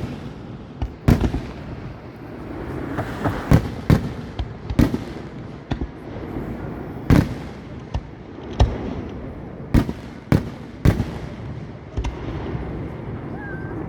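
Category 4 professional display fireworks: shells bursting in about a dozen sharp bangs at irregular intervals, with echoing noise hanging between them.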